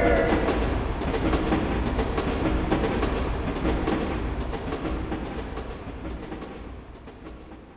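Train sound effect from the TJ Media WOW-7800 karaoke machine's built-in effects: a whistle dropping in pitch as it ends in the first half-second, then a passing train rumbling with rapid wheel clickety-clack that fades steadily away.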